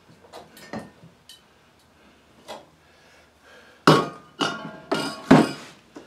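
Hard objects handled and set down on a workbench: a few light clicks, then four sharp clanks with a short ring, about four to five and a half seconds in.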